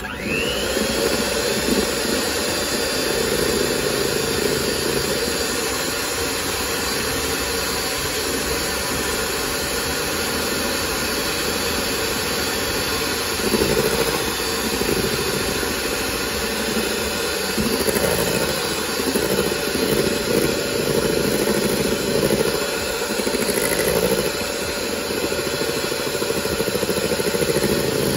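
Electric hand mixer switched on, its motor whine rising briefly as it spins up, then running steadily with its wire beaters whipping cream in a stainless steel bowl.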